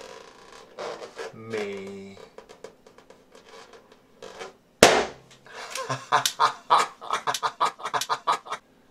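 A single sharp, loud pop of a red latex balloon burst with a BBQ skewer about five seconds in. It is followed by about three seconds of rapid, short, squeaky sounds at around five a second.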